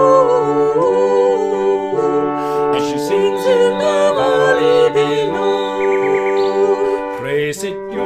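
Folk song accompaniment: the last sung note of a chorus line ends within the first second, then an instrumental break of held chords under a wavering melody line, the chords changing every second or two.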